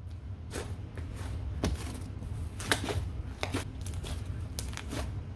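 Jelly slime being pressed and pulled by hand, giving irregular sticky clicks and crackles as it peels off the fingers and countertop. The slime is sticky from too much vegetable glycerin.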